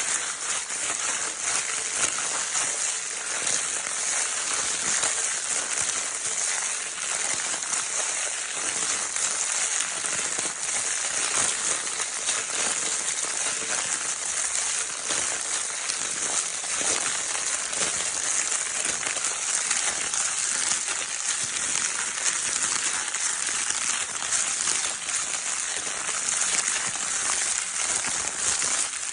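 Crinkle paper of a baby's crinkle toy being rustled and crumpled without pause: a dense, even crackling made of countless tiny crackles, mostly high and hissy.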